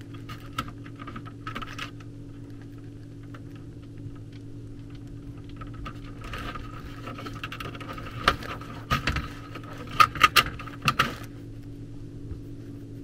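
Light clicks and rustles of thin thermostat wires being handled at a zone board, bunched about six seconds in and again between eight and eleven seconds, over a steady low hum.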